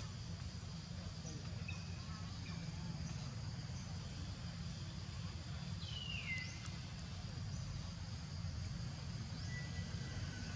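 Outdoor forest ambience: a steady low rumble under a thin, steady high-pitched insect drone, with a few faint chirps and one short falling call about six seconds in.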